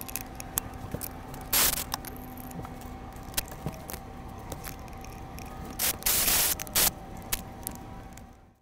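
Ratchet and metal parts being worked on a transmission cover: scattered clicks and scrapes, and two short rasping bursts about four seconds apart, over a faint steady hum. The sound fades out near the end.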